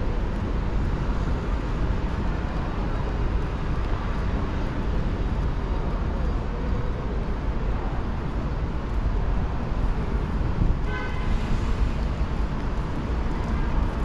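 Steady city traffic noise with a low rumble, and a short horn-like tone about three-quarters of the way through.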